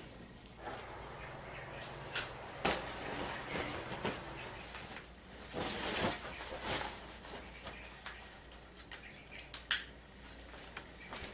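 Handling noise from a person moving about a room: cloth rustling with scattered light clicks and knocks, the sharpest one near the end.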